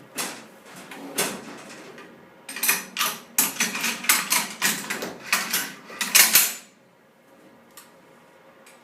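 M240 machine gun bolt assembly being worked back into the receiver: a run of metal-on-metal clacks and scraping that stops about two-thirds of the way through, followed by a couple of faint ticks.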